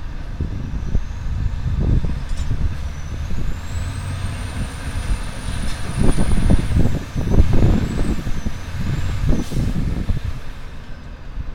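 Drilling rig machinery running as pipe is pulled out of the hole: a low, heavy rumble that surges louder in the second half, a few sharp metallic knocks, and a faint high whine that rises, holds and then wavers.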